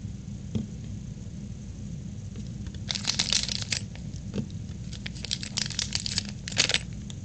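Plastic fruit-snack pouch crinkling in short bursts as the snacks are fished out of it, about three seconds in, again around five seconds and near the end.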